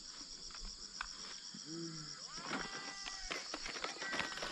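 Quiet outdoor ambience dominated by steady high-pitched insect buzzing, with a few faint distant voices or calls around the middle and near the end.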